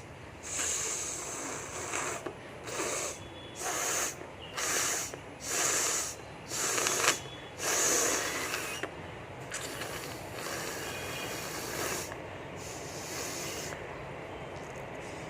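A person blowing their nose hard: a run of about eight forceful blasts of air through the nose, roughly a second apart and getting louder, then a quieter steady hiss for the last few seconds.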